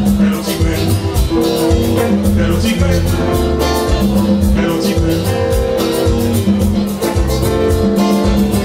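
Live music: a semi-hollow-body electric guitar played over a steady beat with a bass line underneath.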